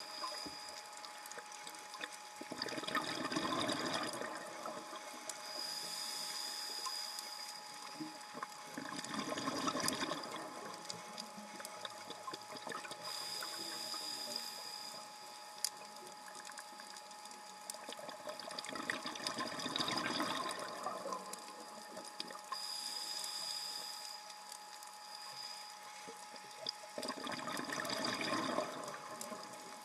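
Scuba diver breathing through a regulator underwater: hissing inhales alternating with rumbling bubble exhales, four exhales a few seconds apart, over a faint steady crackle.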